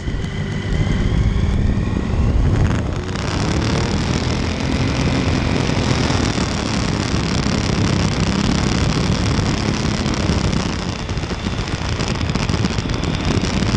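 Motorcycle engine running under way, with heavy wind rushing over the camera microphone. The engine note dips briefly about three seconds in, then climbs again and holds steady as the wind noise grows louder.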